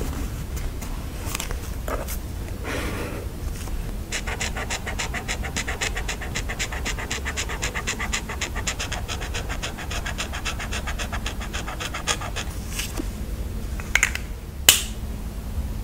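Close-up paper-craft sounds of sticker journaling. About four seconds in, a fast, even scratching of paper and sticker sheet starts and runs for about eight seconds. Near the end come two sharp taps, the second the loudest.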